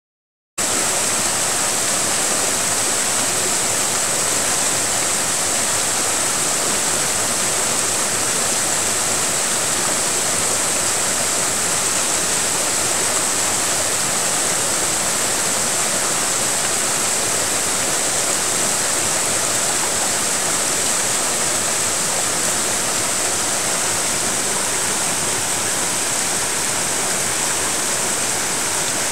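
Clear mountain stream rushing over mossy boulders in small cascades: a steady, even rush of water.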